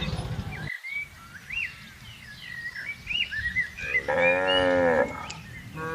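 A cow mooing once, a call of about a second starting about four seconds in, with small birds chirping throughout.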